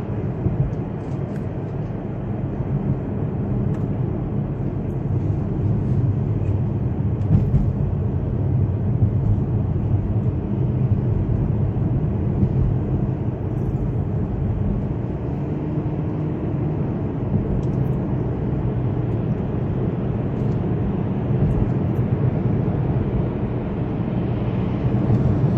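Car being driven, heard from inside the cabin: a steady low rumble of engine, tyre and wind noise.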